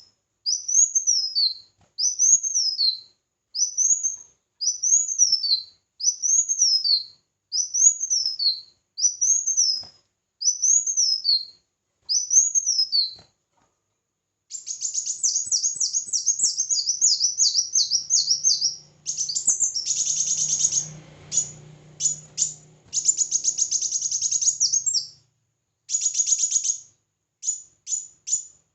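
Small songbird singing high and loud: a single arched note rising and falling, repeated about once a second, then after a short pause a rapid run of fast, high trilled notes.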